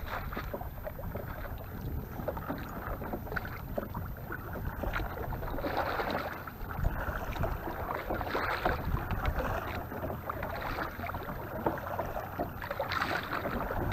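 Water splashing and lapping around a fishing kayak, with wind rumbling on the microphone.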